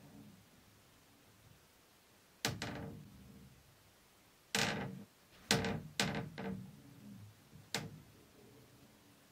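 A series of about six sharp knocks or bangs at uneven intervals, the first about two and a half seconds in and the last near the end, each dying away quickly.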